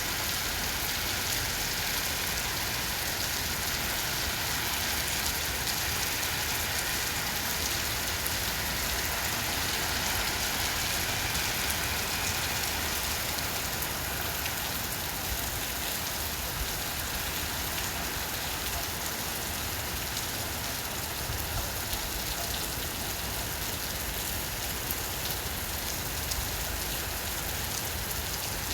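Heavy rain falling steadily: a dense, even hiss with individual drops ticking through it.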